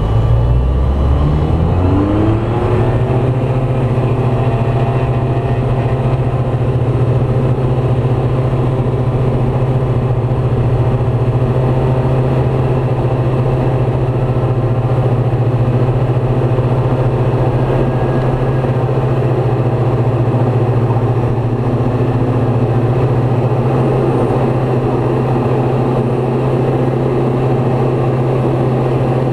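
Light aircraft's piston engine, heard from inside the cabin, rising in pitch over the first couple of seconds as it goes to full takeoff power, then running at a steady high pitch.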